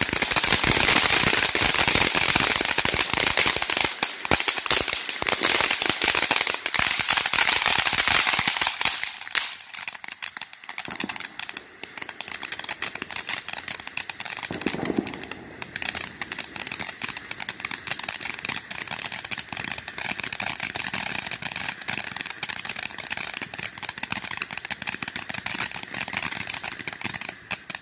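Ground fountain fireworks hissing and crackling in a rapid, continuous stream of tiny pops. The sound is loud for the first nine seconds or so while two fountains burn, then softer as one fountain keeps crackling.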